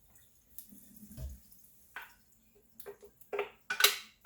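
Wet blended cauliflower and its water splashing and dripping through a fine mesh strainer over a kitchen sink, with scattered knocks and clinks of the spoon and strainer. The clatter is busiest and loudest near the end.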